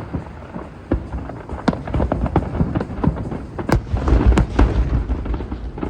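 Aerial fireworks going off in quick succession: sharp bangs and crackles over a continuous low rumble of booming shells. The bursts come thickest about halfway through.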